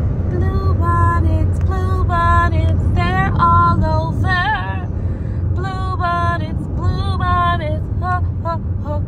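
A woman's voice singing a melody in sustained, gliding notes, over the steady low rumble of a car's road noise heard from inside the cabin.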